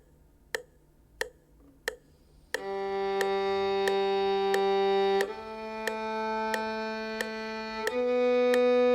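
Metronome ticking at 90 beats a minute, four clicks alone as a count-in, then a violin playing the start of a slow scale in long whole-bow notes, four beats each, stepping up three notes (G, A, B) as the clicks carry on.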